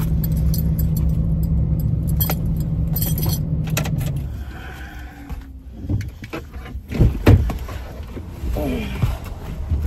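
Metal clasp of a purse strap clicking and jingling as it is handled, over the steady hum of a car engine idling; the hum stops about four seconds in. A few loud thumps follow about seven seconds in.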